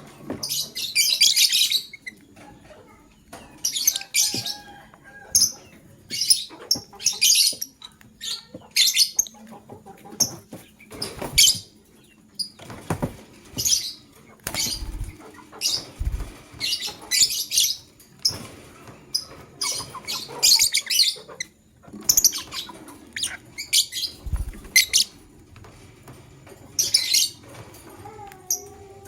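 Lovebirds chirping: clusters of short, shrill, high-pitched calls repeated throughout, with a few dull low thuds in between.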